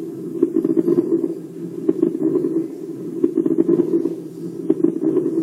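Recorded stethoscope lung sounds of pulmonary edema, fluid in the lungs: low, rushing breath sounds swelling and fading with each breath, dotted with short crackles, with a rub-like quality.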